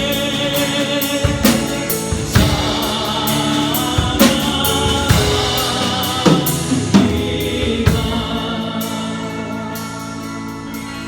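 Church praise band with a drum kit, playing under congregational singing of a worship song. The drum hits stop about eight seconds in, and the song fades as the final chords ring out.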